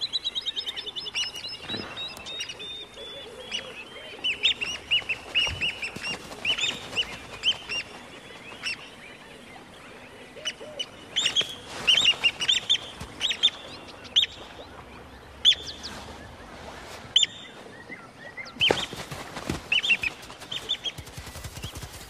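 Plover giving sharp, high alarm calls at a monitor lizard, a nest predator: a fast rattling run of notes at first, then piercing calls in irregular clusters.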